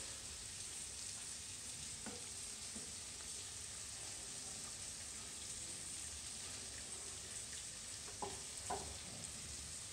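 Food sizzling steadily as it fries in a pan, with a few faint knocks about two seconds in and twice near the end.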